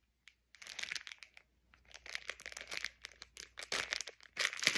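Plastic wrapper of a Hot Hands hand warmer pack crinkling and rustling in irregular bursts as it is pulled open, loudest near the end.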